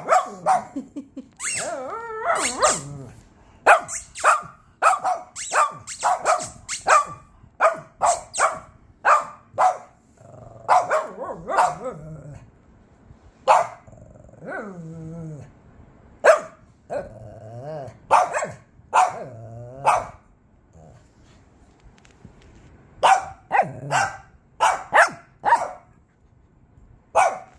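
Small Shih Tzu dogs barking in quick runs of sharp, high yaps, broken by a few short growls.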